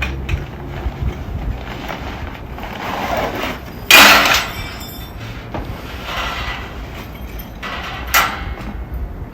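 Metal parts of a camping fire stand being handled: scraping and knocking, with a loud metallic clank about four seconds in and a smaller one near the end.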